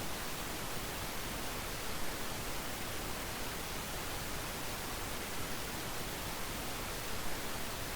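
Steady, even hiss with no distinct events: the recording's background noise.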